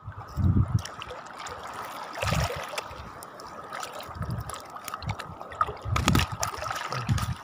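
Shallow seawater sloshing and trickling around a wading angler's legs and hands, with several short low swells of sound.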